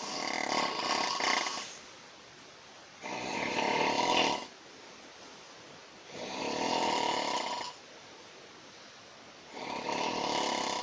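A sleeping person snoring very loudly: four long snores, each about a second and a half, coming about every three seconds with quieter breathing between them.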